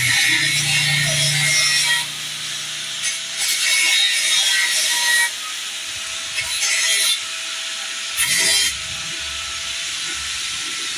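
Four bursts of harsh scraping or rasping noise, the first two about two seconds long and the last two short, from hand-tool work on a motorcycle rear shock absorber.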